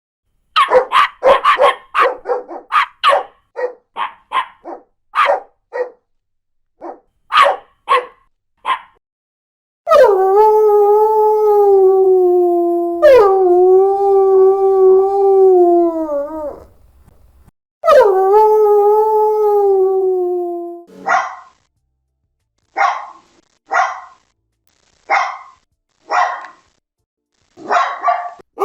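A dog barking in a quick run of short barks, then three long howls, each held about three seconds and sagging slightly in pitch at the end, then single barks about a second apart.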